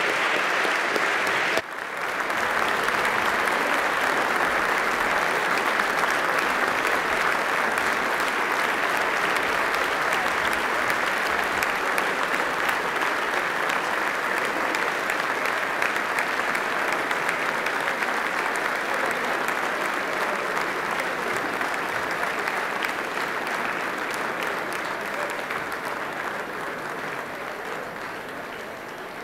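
Large crowd applauding, with dense, sustained clapping that dips briefly about two seconds in and slowly fades toward the end.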